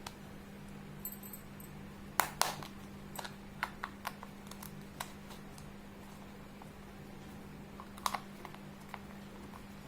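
Small toy pieces clicking and tapping as they are handled, with the loudest clacks just after two seconds in and another cluster near eight seconds, over a steady low hum.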